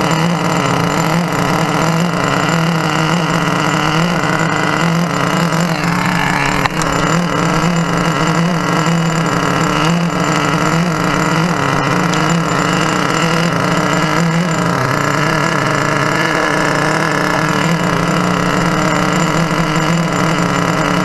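Thunder Tiger TS4n nitro RC car's small glow engine idling close by, a steady buzzing note that wavers slightly in pitch. There is one short click partway through.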